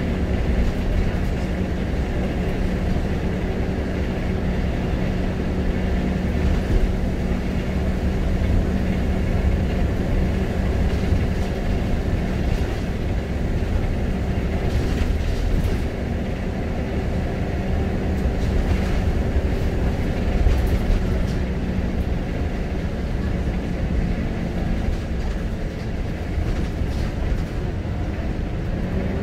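Scania L94UB Wright Solar single-decker bus under way, heard from inside the saloon: a steady engine drone over low road and body rumble, with a few brief rattles partway through.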